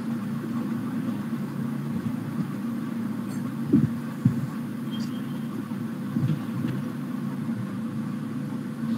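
A steady low hum through the call's audio, with a few brief faint sounds over it.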